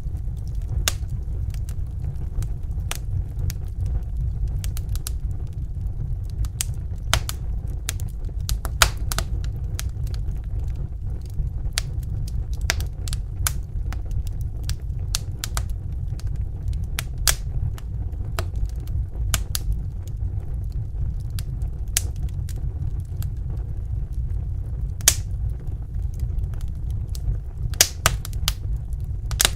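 Wood fire crackling in a fireplace: irregular sharp pops and snaps, a few louder than the rest, over a steady low rumble of burning.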